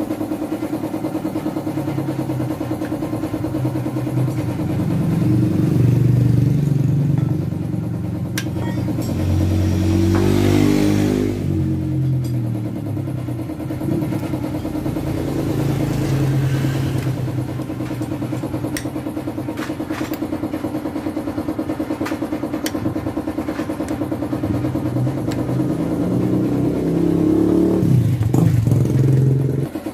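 A motorcycle engine running at idle and revved up briefly a few times, with a few light clicks over it.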